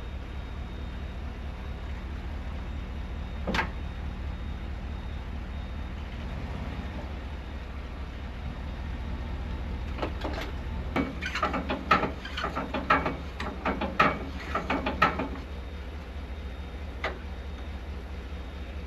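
A vehicle engine idling steadily, with a single knock and then a rapid series of metallic clanks and knocks for several seconds.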